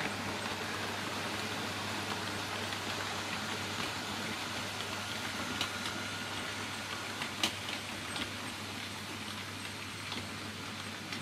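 Model railway locomotives running along the track: a steady whirr and rumble of motors and wheels, with a few sharp clicks of wheels over rail joints and pointwork. It gets slightly quieter towards the end as the train runs out of view.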